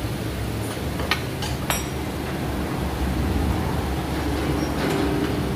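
Steady low workshop rumble with a few sharp metallic clinks, about a second in and again shortly after, from a mechanic's hand tool working on the car's underside during a wheel alignment.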